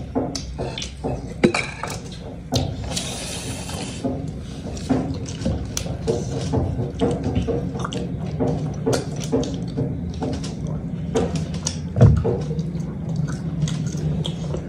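Close-up eating sounds: wet chewing and smacking, and roast chicken being torn apart by hand, heard as a stream of small clicks and squelches. A short hiss comes about three seconds in, and a sharper knock near the end.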